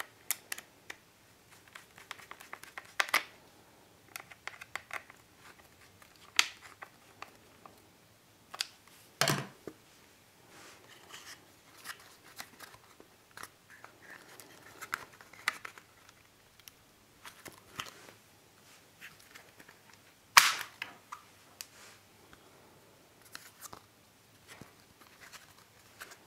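Small clicks, taps and knocks of plastic and metal parts and a screwdriver as a Husqvarna 55 chainsaw's plastic chain brake cover is handled and assembled by hand. Two louder knocks come about nine seconds in and about twenty seconds in.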